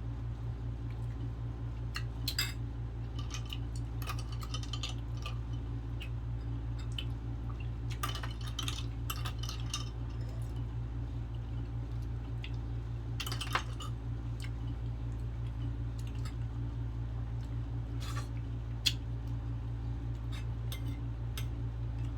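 Close-up eating sounds: scattered clinks of dishes and utensils and short wet mouth and food noises, with a few sharper clinks, over a steady low hum.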